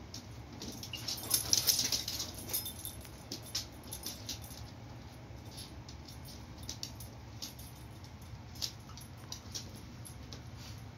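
Two dogs playing: scattered light clicks and patter of paws and claws on a wooden floor and rug, busiest about one to two seconds in.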